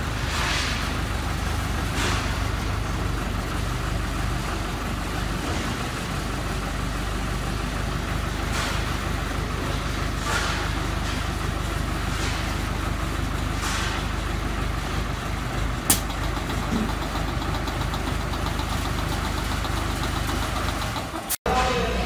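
Self-loading concrete mixer's engine running steadily while its hydraulic loading arm is worked, with a few short hisses every few seconds and one sharp click about two-thirds of the way through. The sound cuts out for a moment near the end.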